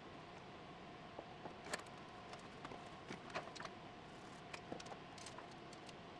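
Scattered faint clicks and taps, irregular and a dozen or so in all, over a steady low hiss and a faint steady hum.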